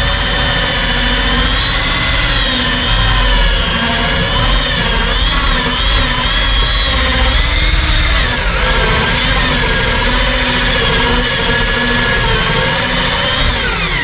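Handheld electric drill running a hole saw that is cutting into a wooden door. The motor whine is steady and loud, wavering slightly up and down in pitch as the saw bites into the wood.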